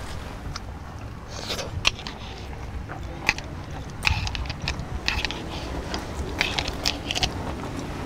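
Close-up eating sounds: chewing and crunching on pickled seafood, mixed with sharp clicks of chopsticks against a plastic jar.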